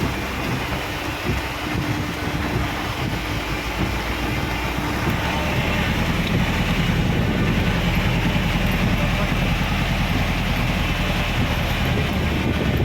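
A vehicle's engine runs steadily while under way, with wind and road noise. The engine's low hum grows louder about five seconds in.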